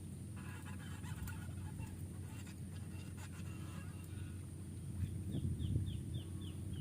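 A chicken clucking, then a quick run of about six short descending chirps, over a steady low hum.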